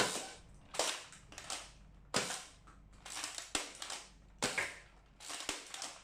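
X-Shot toy foam-dart blaster firing over and over, a sharp snap about every second, a freshly cleared jam no longer stopping it.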